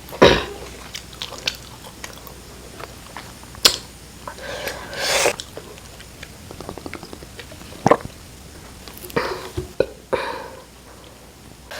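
Close-miked eating sounds: intermittent chewing, with scattered mouth clicks and smacks and a few longer, louder moments.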